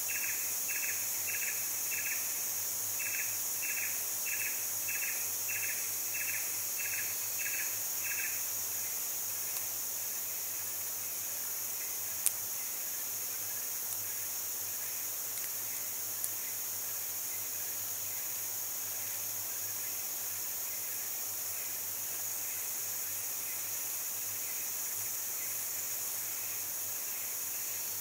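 Forest insect chorus: a steady high-pitched drone, with a second caller repeating a short pulsed chirp about twice a second, strong for the first eight seconds and then fainter. A single sharp click about twelve seconds in.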